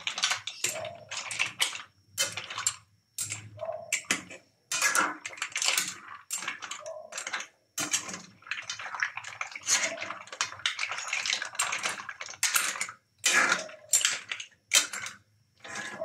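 A metal spoon stirring green mussels in a stainless steel pan: the shells make an uneven run of clinks, clatters and scrapes against each other and against the steel, with some sloshing of the broth.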